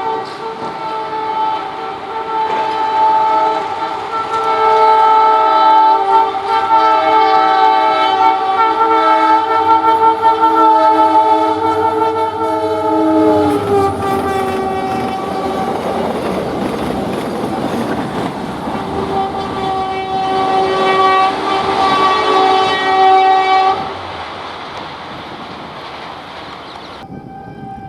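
Indian Railways diesel locomotive's multi-tone air horn blowing one long continuous chord as the train approaches. About halfway through, the chord drops in pitch as the locomotive passes. The rumble and rattle of the passing train follows, with another long horn blast at the lower pitch before it fades.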